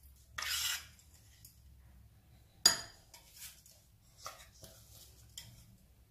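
A metal spoon scraping coarse ground spice paste out of a steel grinder jar, then a sharp clink of metal on glass about two and a half seconds in, followed by a few light taps.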